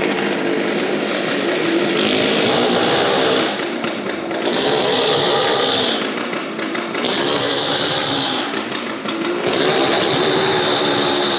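Motorcycle engine revving hard in about four rising and falling surges, with short dips between them, inside a wooden wall-of-death drum.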